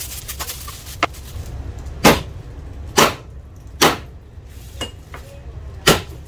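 Cleaver chopping a cooked chicken into pieces on a cutting board: sharp chops about once a second, the first one light.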